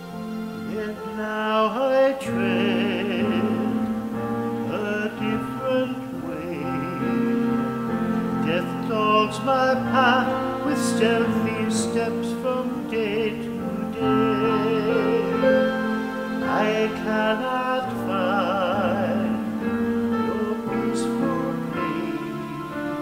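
A solo voice singing a slow sacred piece with wide vibrato over sustained accompaniment, in a reverberant church.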